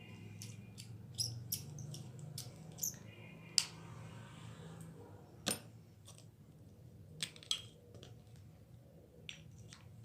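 Irregular sharp clicks and taps of small metal and plastic parts of a spinning fishing reel being handled and fitted together, over a faint low hum that fades about halfway.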